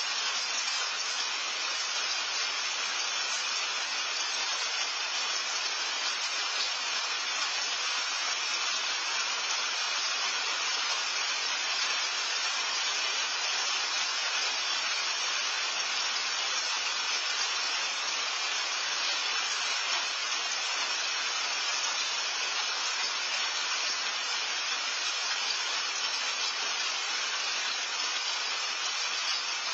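Steady rain falling, heard as an even, unbroken hiss with no single drops standing out.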